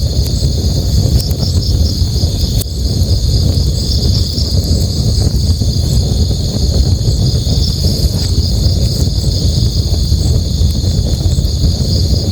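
Crickets chirping in a steady, fast-pulsing high trill over the continuous low rush of a river, with a few sharp crackles from a campfire, the clearest a little under three seconds in.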